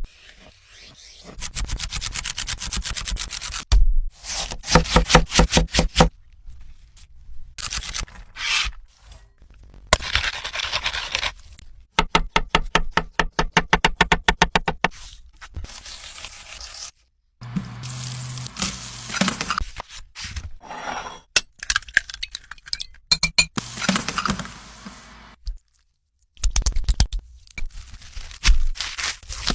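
A quick succession of short food-preparation sounds: scraping, cracking and runs of fast, evenly spaced strokes, each cut off abruptly with brief silent gaps between them.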